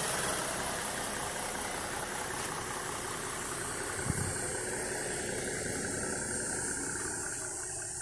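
2012 Ford Mustang's 3.7-litre V6 idling steadily, running real smooth while warming up after sitting for a few days so the oil will drain easier. A short thump about four seconds in.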